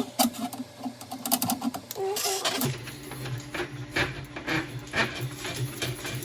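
Drain-clearing tool being worked in a clogged sink drain: scattered metallic clicks and rattles, then from about two and a half seconds in a steady mechanical whir with rapid clicking.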